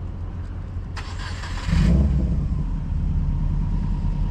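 Car engine running. About a second in there is a short hissing burst, then the engine note steps up and holds steady and louder, like an engine catching after a start.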